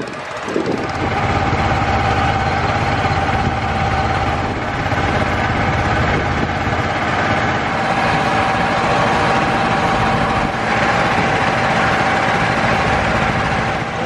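Small wooden river boat's engine running steadily under way: a constant drone with a steady whine over it.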